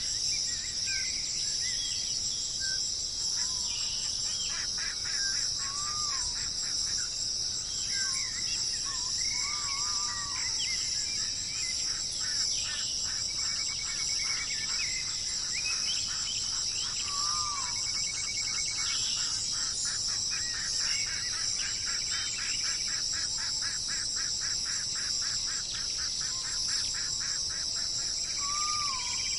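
Outdoor nature ambience: a steady, high-pitched chorus of insects such as cicadas or crickets, with assorted birds calling over it in short whistled notes and slurs, and several fast rapid trills.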